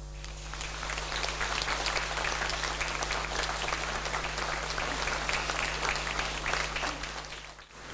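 Audience applauding after an orchestra piece, the clapping building up over the first second and fading away near the end.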